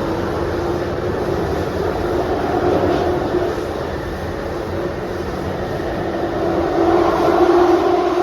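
Jubilee line 1996 Tube Stock train running between stations, heard from inside the carriage: a steady rumble with a steady whine over it. The whine gets louder near the end.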